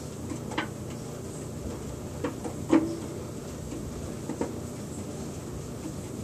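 Front-loading washing machine drum turning with a cat inside: a steady low hum with four short knocks from inside the drum, the loudest a little under three seconds in.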